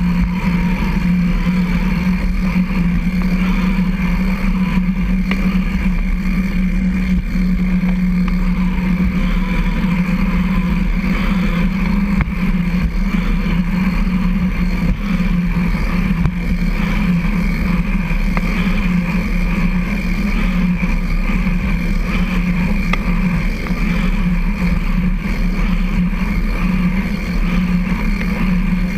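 Steady hum and rumble of a recumbent trike rolling at a constant pace on a concrete trail, picked up through the frame by a camera mounted on the front boom.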